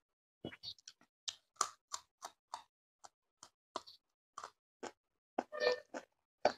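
Close-up eating sounds of a person chewing a mouthful of fish, rice and raw green chili: a quick run of crunchy clicks and wet mouth smacks, about three a second, with a longer, louder crunch about five and a half seconds in.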